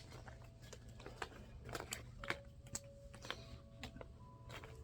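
Faint, scattered light clicks and rustles of small plastic toy pieces and packaging being handled, about one or two clicks a second.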